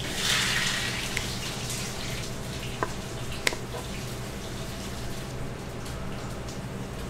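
Water running from a tap, strongest in the first second and then a steady flow, with a few sharp clinks.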